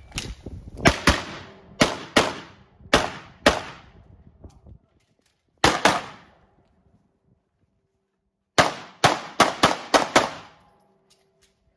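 Rapid pistol shots fired mostly in quick pairs: a string through the first four seconds, a pair near six seconds, and a fast run of shots around nine to ten seconds, with silent pauses between the groups.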